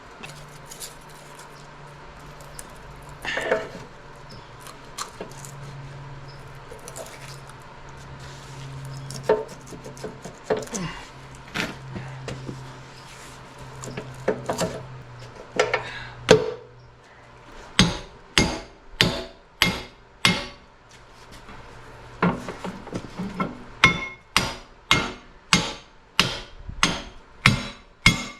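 Hammer blows: scattered knocks and clanks at first, then a steady run of sharp strikes about two a second over the last ten seconds. A steady low hum sits under the first half.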